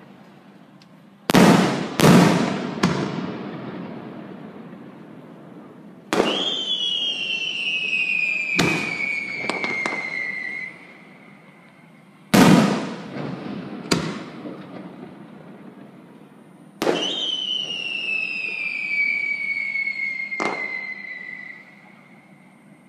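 Aerial firework shells going off in a run of sharp bangs, each trailing off over a few seconds. Twice, a bang sets off a long whistle that slides down in pitch for about four seconds.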